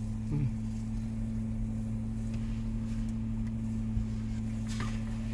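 Steady low hum with two held pitches, unchanging through the wait, with a brief murmur of a voice just after it begins.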